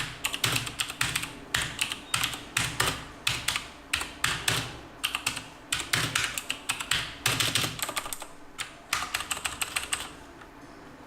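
Fast typing on a Texet Shift Flamer mechanical keyboard: quick runs of key clicks with short pauses between them, falling quiet for about the last second.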